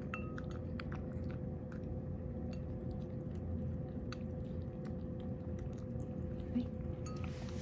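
A cat chewing and licking wet food from a small ceramic bowl, with scattered light clicks of a metal spoon against the bowl.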